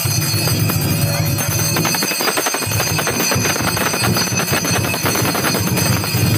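A metal bell rung rapidly and without a break, over loud Chinese temple ritual percussion.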